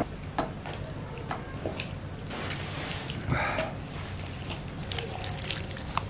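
Raw meat pieces in a wet spiced marinade being mixed and kneaded by hand in a steel bowl: irregular wet squishing with light clicks of meat against the bowl.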